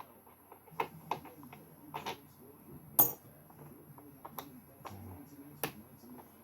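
Scattered clicks and knocks from a Torx screwdriver, loose screws and the plastic casing of a paint sprayer being unscrewed by hand, with one sharp clink about three seconds in.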